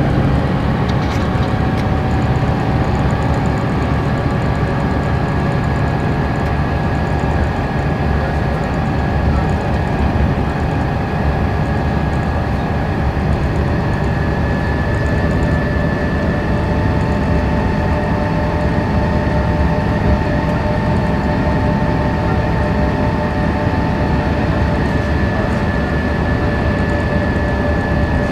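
Inside a 1992 Neoplan AN340/3 bus cruising at freeway speed: its Detroit Diesel Series 60 engine runs steadily under the rumble of road and tyre noise, with a steady high whine over it.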